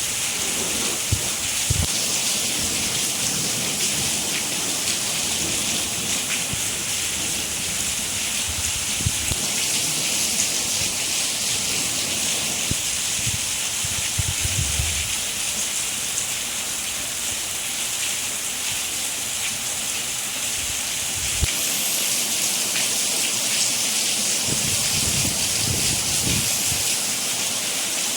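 Steady, heavy rain falling, a dense even hiss of drops, with a few brief low rumbles underneath.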